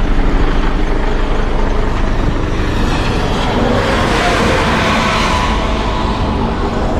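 Compressed air hissing out of a truck's air-suspension bags as they are deflated to lower the truck, growing louder past the middle, over the steady low rumble of the diesel engine idling.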